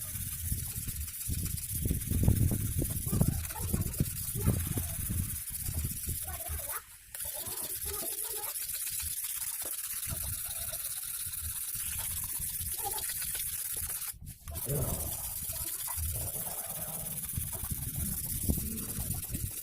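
Sickle blade being stroked on a whetstone wetted with cough syrup: a hand-sharpening scrape and hiss that cuts out briefly twice.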